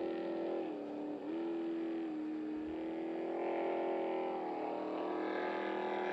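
Six-litre-class racing powerboat's engine running at speed on a warm-up lap, a steady note that dips in pitch briefly about a second in and grows fuller after the midpoint.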